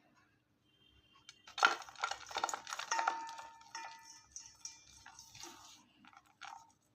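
A bar of gym chalk being crushed: a dense burst of crunching and crackling starts about a second and a half in, loudest at first, then thins out into scattered crumbling crackles.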